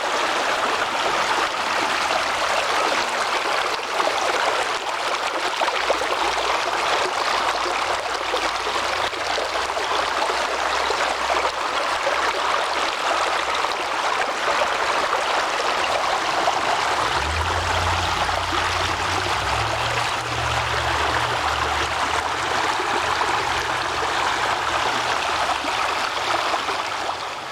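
Small mountain creek rushing steadily over rocks.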